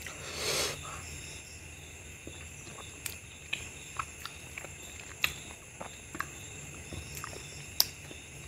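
Close-miked eating of a curried mutton leg piece: a short slurp about half a second in, then scattered wet chewing clicks and lip smacks as the meat is chewed off the bone. A faint steady hum lies underneath.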